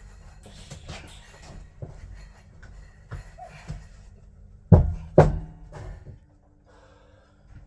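Background music under knocking from dismantling work, with two loud metallic clangs about half a second apart near the middle that ring on briefly.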